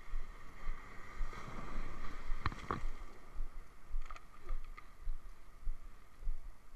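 Close handling noise at the microphone: irregular low knocks and rustling over a steady rushing background. Two sharp clicks come about two and a half seconds in, and a few lighter ones a second and a half later.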